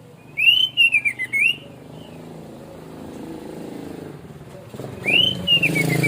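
Orange-headed thrush singing: two bursts of clear, rising-and-falling whistled phrases, the first about half a second in and the second near the end. Under the song, a vehicle engine hums, growing louder through the second half.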